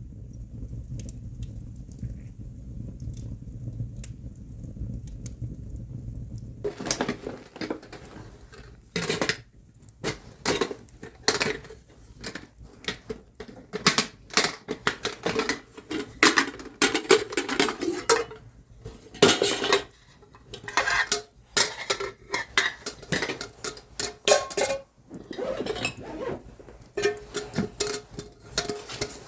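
A low steady rumble for the first six or seven seconds, then metal cookware and utensils clanking and scraping: many sharp knocks and clinks, some with a short ringing tone.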